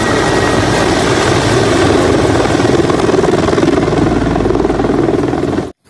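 Military helicopter flying low overhead, its rotor beating in a rapid chop over the loud engine and rotor noise; the sound cuts off suddenly near the end.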